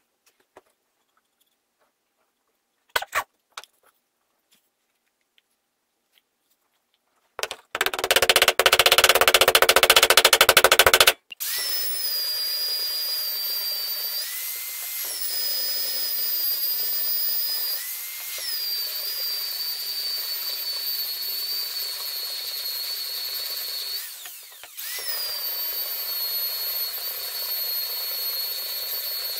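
A few light knocks, then a wooden mallet tapping rapidly and hard on wood to drive round wooden inserts into the board for about three seconds. After a short break, an electric power tool runs steadily with a high whine, dipping briefly under load a few times.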